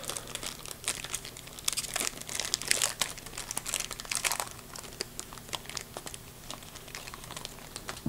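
Trading-card pack wrapper crinkling and tearing as it is opened by hand: a run of quick crackles and rustles, with a couple of denser bursts of crinkling in the first half.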